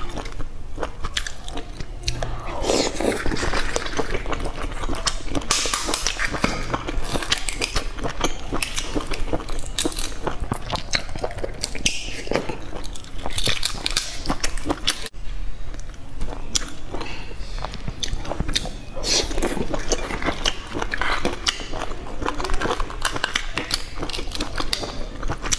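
Close-up eggshells crackling as they are cracked and peeled by hand, with biting and wet chewing of boiled egg in between. There is a brief break about halfway through.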